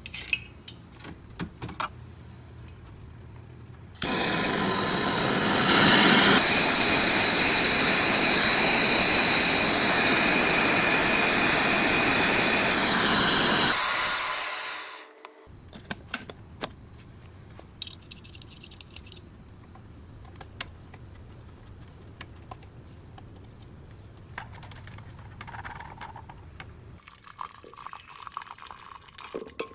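Loud rushing hiss of a pressurised R141b flush forced through a refrigerator condenser's tubing. It starts suddenly about four seconds in, runs about ten seconds with a faint whistle in it, then tails off, with scattered light clicks before and after.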